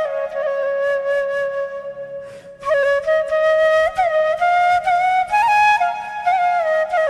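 Flute music: a single melodic line with ornamented bends and slides between notes, breaking off briefly about two and a half seconds in before the melody resumes.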